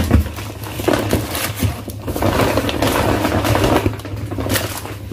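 Rustling and crinkling of shopping bags and paper packaging as groceries are unpacked, with small knocks of items being handled.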